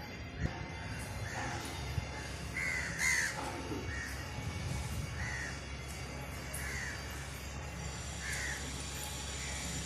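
Crows cawing over and over, short arching calls about once a second, over a steady low background hum.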